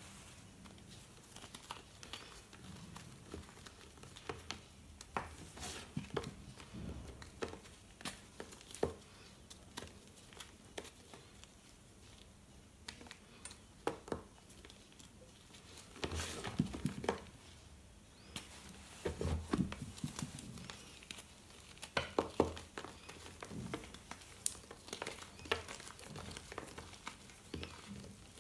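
Reformed gym chalk being crumbled and crushed by hand, with loose chalk powder sifting down: irregular dry crunches and crackles, with bigger clusters of crunching past the middle.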